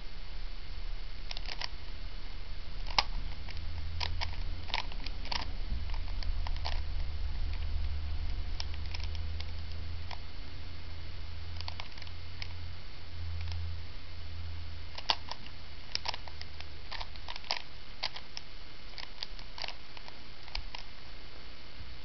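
Rubik's Cube being turned by hand, its plastic layers making irregular clicks, often several in quick succession, over a low steady hum that fades out near the end.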